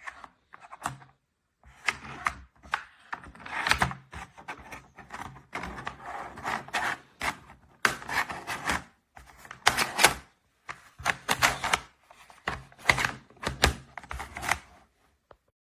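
Hard plastic parts of an interactive treat-puzzle dog toy clattering, clicking and rubbing in quick irregular bursts as it is pushed about, with short pauses between bursts.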